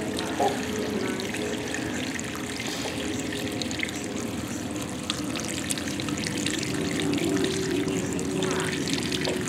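Water from a garden hose pouring steadily into an above-ground pool as it fills.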